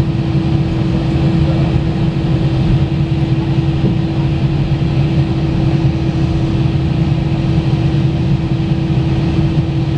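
Airbus A319 cabin noise while taxiing, the jet engines at idle: a steady low hum with one held tone, heard inside the cabin over the wing.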